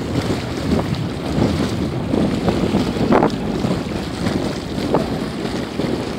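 Wind buffeting the microphone in uneven gusts, one louder puff about three seconds in, over small waves lapping against a sloping concrete bank.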